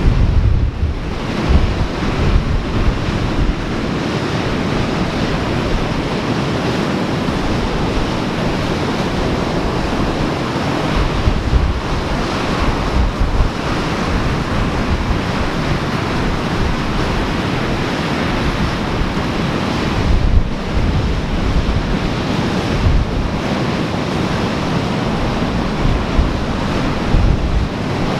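Ocean surf washing steadily against the shore, with gusts of wind buffeting the microphone, hardest near the start, about two-thirds of the way through and at the end.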